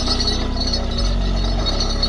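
Truck-mounted borewell drilling rig running: steady machine noise with an even low pulse, which grows louder about a second in.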